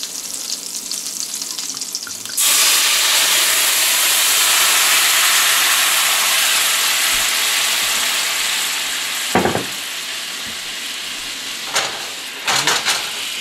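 Lemon juice sizzling in a hot stainless steel skillet, then about two seconds in the pan bursts into a loud, steady hiss as wine is poured in to deglaze it, the sizzle slowly dying down as the liquid heats. A few short knocks near the end.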